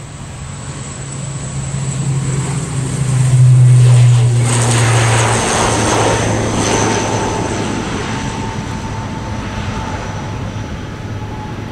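ATR 72-600 turboprop taking off, its Pratt & Whitney PW127M engines and six-bladed propellers at take-off power giving a loud low propeller drone. The drone drops in pitch about five seconds in as the aircraft passes, then fades as it climbs away.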